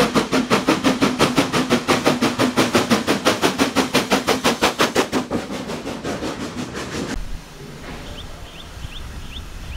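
Black Five steam locomotive working hard, its exhaust beating fast and evenly at about six chuffs a second, fading after about five seconds. About seven seconds in, the sound changes abruptly to a quiet low rumble with a few faint short chirps.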